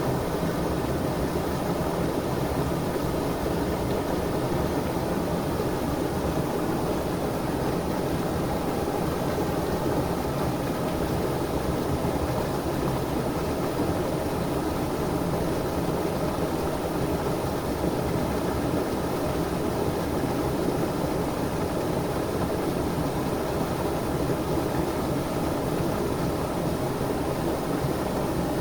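Stream water flowing, a steady unbroken rush.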